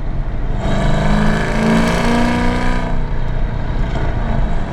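Chevy SS's cammed 6.2-litre LS3 V8, on long-tube headers and an X-pipe, accelerating: the engine note rises in pitch for about a second and a half, holds, then eases off about three seconds in.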